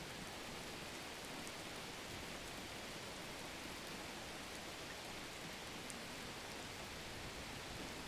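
Steady rain falling: an even hiss of rain with a few faint drop ticks.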